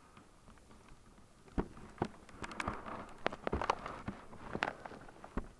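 Camera handling noise on a snowmobile handlebar mount, with the engine off: a scatter of irregular sharp clicks and knocks with rustling between them, starting about a second and a half in and stopping just before the end.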